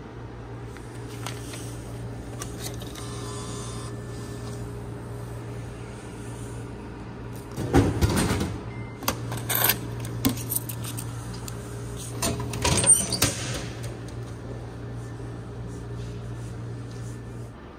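Drink vending machine dispensing a plastic bottle: a loud clatter as the bottle drops into the collection bin about eight seconds in, with a few further knocks, then another cluster of clunks a few seconds later as the bin flap is pushed open and the bottle pulled out. A steady low hum runs underneath.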